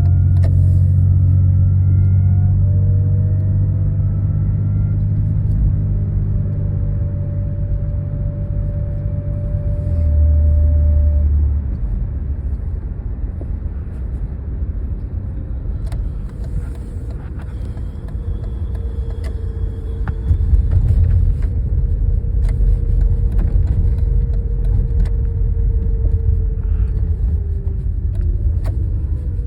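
1991 BMW E32 730iA, its M30 3.0-litre straight-six, running under way with a steady low rumble. A faint whine climbs in pitch several times in the first few seconds, then holds steady and falls away near the end.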